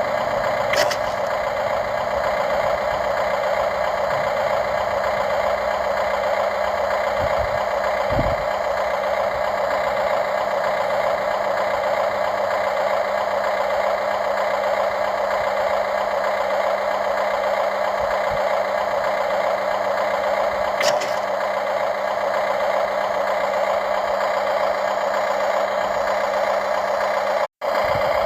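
Radio-controlled model excavator running with a steady mechanical hum and whine, with a couple of brief clicks and a momentary cut-out near the end.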